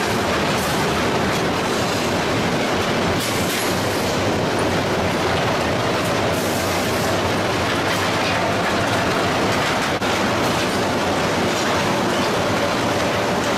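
Steady metallic rumble and clatter of steel rolling-mill machinery, as hot bars run over roller tables and through the mill. A faint steady whine joins in over the last few seconds.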